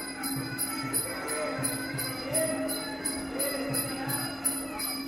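Traditional Thai boxing ring music (sarama): small ching cymbals strike a steady beat about three times a second over soft drum pulses, with a wavering, reedy melody from the pi oboe above a steady drone.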